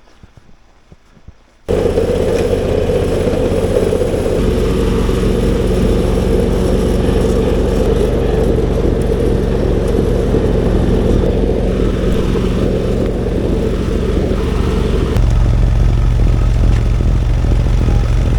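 John Deere tractor engine running steadily while driving a front-mounted snowblower through heavy, wet snow. The sound starts abruptly a couple of seconds in. The engine note shifts about four seconds in and runs louder and deeper near the end.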